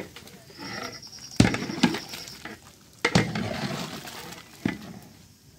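Long metal ladle stirring a large pot of boiling dalcha: liquid churning, with four sharp clanks of the ladle against the pot, two of them loud. A high, thin trill sounds about half a second in and stops about two seconds in.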